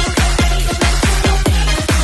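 Electronic dance music with a fast, steady kick-drum beat.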